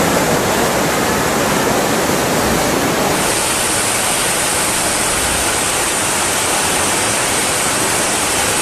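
Loud, steady rushing of water, with a brighter hiss joining about three seconds in.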